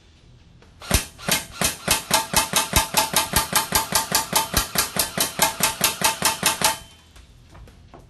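Rossi Neptune 8-inch M4 airsoft electric rifle (AEG) firing a rapid, even string of semi-automatic shots, about five a second for some six seconds. Each shot is a separate trigger pull, not full auto.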